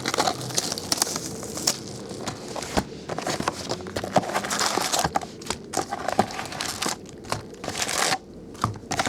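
Plastic wrap crinkling and tearing in irregular crackles as a sealed box of trading cards is unwrapped and opened.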